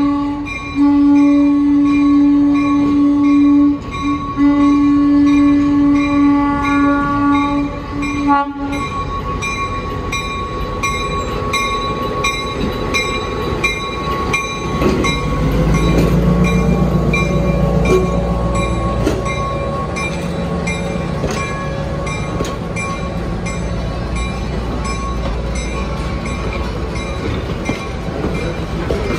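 Diesel switcher locomotive's air horn sounding a long blast, broken briefly twice, that stops about eight seconds in. Then comes the low rumble of its engine as it rolls past pulling open excursion cars. A regular clang about twice a second runs underneath.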